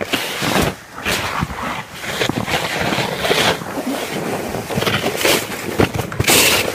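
A sled sliding fast down a snowy slope: a steady rushing scrape over the snow with wind buffeting the microphone, broken by frequent bumps and knocks. It grows louder near the end.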